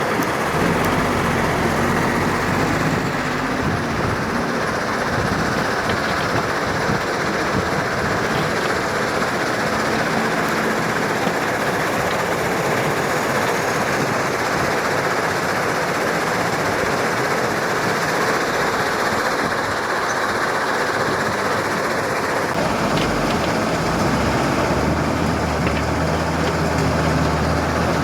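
Heavy diesel earthmoving machinery running under load, a dense steady rumble with a shifting low engine note. Late on, a lower, steadier engine tone sets in.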